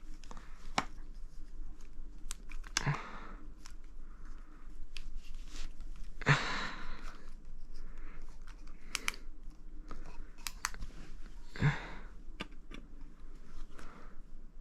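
Small hand-handling sounds of airsoft gun parts: many sharp little clicks and taps of plastic and metal pieces, with three short rustling bursts spread through.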